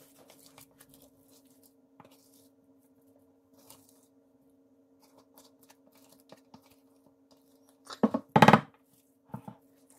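Soft scrapes of a spatula pushing sticky shredded hash brown mixture out of a bowl into a glass baking dish, over a faint steady hum. About eight seconds in comes a short, louder clatter of dish and utensil handling, then more short scrapes as the mixture is spread in the dish.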